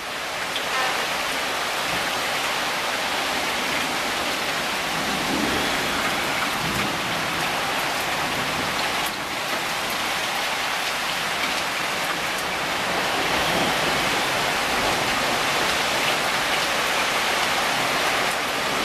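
Rain pouring down steadily during a thunderstorm.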